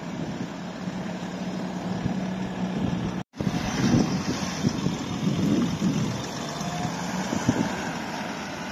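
BMW 3 Series coupe engine running as the car rolls slowly past, at first a steady low hum. After a brief break it becomes a louder, uneven exhaust rumble with a few surges as the car pulls away.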